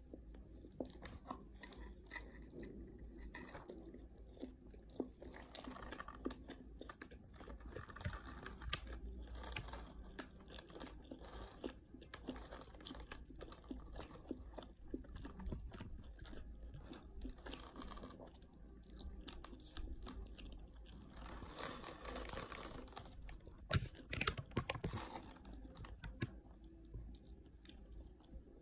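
Close-miked chewing and crunching of crispy fried chicken, with irregular crackling bites and mouth sounds; the sharpest crunches come a little before the end.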